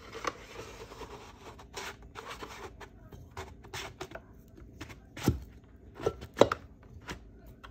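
Plastic sheet rubbing and crinkling, with metal scraping, as a 4L60E transmission piston is worked by hand into its drum past a plastic-strip seal guide. It is a quiet, irregular run of scrapes with scattered sharp clicks, the loudest three coming about five to six and a half seconds in.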